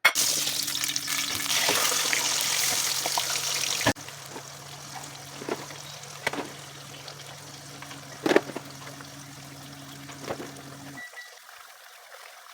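Kitchen cooking sounds: a loud steady hiss for about four seconds, then a quieter steady hum with a few light clinks, which cuts off near the end.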